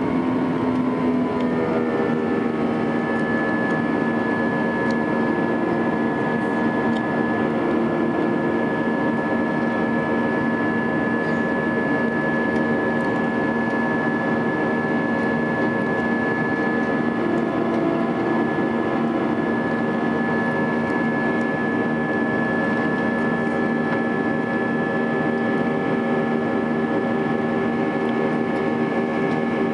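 Airbus A320 jet engines heard from inside the cabin over the wing during the climb after takeoff: a steady drone with several held whining tones. About two seconds in, the engine tones drop slightly in pitch and then hold steady, as thrust is brought back from takeoff to climb power.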